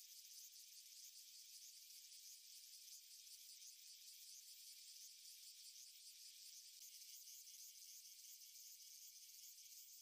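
Cicada buzzing: a faint, steady high-pitched drone with a fine, rapid flutter.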